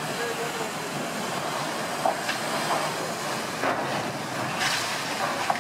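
Steady grinding, crunching metal noise with several sharp cracks and bangs, the first about two seconds in and another near the end: the steel span of a lift bridge tearing into a freighter's funnel and wheelhouse.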